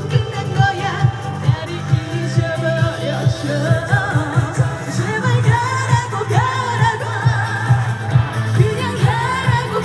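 Woman singing a Korean trot-pop song live, with amplified backing music and a steady driving beat.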